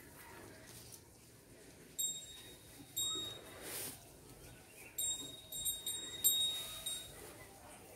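Bangles on a wrist clinking: about eight short, bright ringing clinks with the same high tone each time, most of them bunched in the second half. A brief rustle comes just before the middle.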